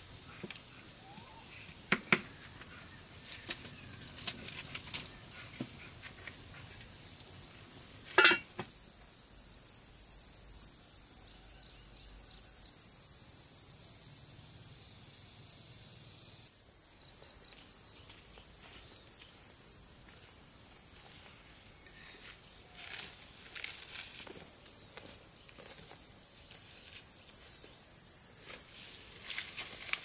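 Forest insects chirping in a steady high-pitched drone, with a second insect tone joining about nine seconds in. A few sharp knocks and snaps break in, the loudest at about two and eight seconds.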